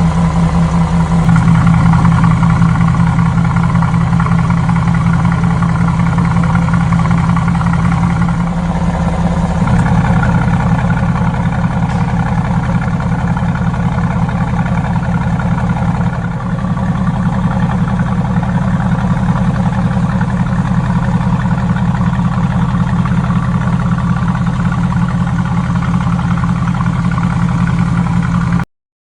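Mercedes-AMG GT S's twin-turbo V8 exhaust running steadily at idle, with slight changes in tone a few times but no sharp revs.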